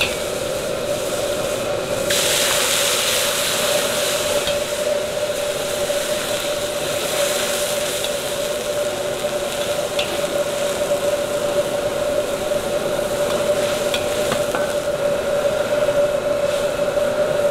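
Hot wok sizzling as liquid is poured onto fried chili bean paste and aromatics: about two seconds in it bursts into a loud hiss of steam, then settles into a steady sizzle and bubble of simmering sauce while a metal ladle stirs, with a few light ladle ticks against the wok. A steady hum runs underneath.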